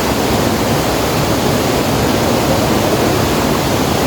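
Steady rushing of river water, an even noise at a constant level.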